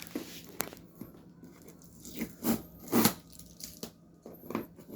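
The cardboard box and packaging of a small vacuum cleaner being opened and handled: a series of short, irregular rustling and scraping noises, the loudest about three seconds in.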